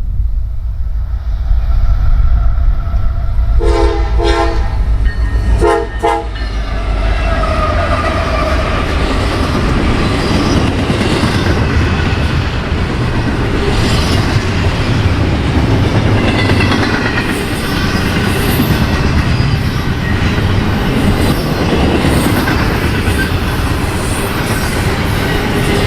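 Diesel freight train passing close by. The locomotive horn sounds twice, about four and six seconds in, a longer blast and then a short one, over the heavy rumble of the engines. After that the cars roll past with intermittent high wheel squeals.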